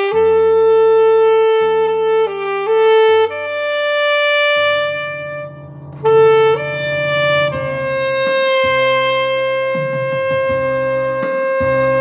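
Alto saxophone playing a slow song melody in long held notes over a backing accompaniment. The last note is held steadily through the second half.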